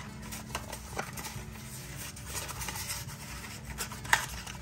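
Small clicks and rustles of nail products and their packaging being handled, with one sharper click about four seconds in.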